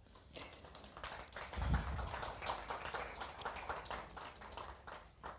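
Audience applauding with scattered clapping that dies away near the end, and a low thump about a second and a half in.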